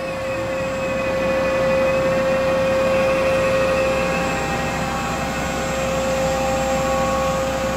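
Ganesh CTL-618EVS precision lathe's spindle running at high speed under its variable-frequency-drive motor: a steady mechanical whine with several pitched tones over a running hum. It swells in the first second or two as the speed is turned up, then holds steady.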